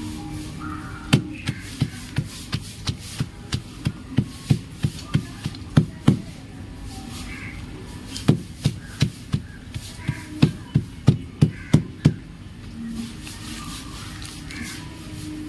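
Chalk being crushed and crumbled: a run of sharp crunching snaps, about three a second, with a pause of about two seconds in the middle.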